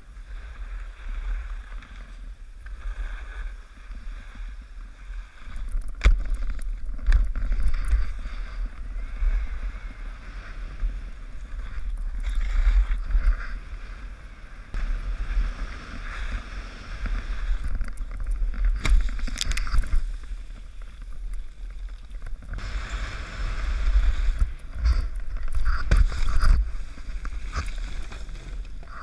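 Wind buffeting a helmet-mounted action camera as a skier runs down the slope, a deep rumble with skis hissing on the snow that swells and fades. Several sharp knocks cut through, from the skis and the ride.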